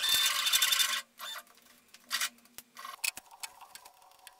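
Stepper motors of a 3D-printed DIY Dremel CNC jogging the axes to bring the bit to the zero point: a burst of motor noise about a second long, then three shorter moves about a second apart, followed by faint clicks.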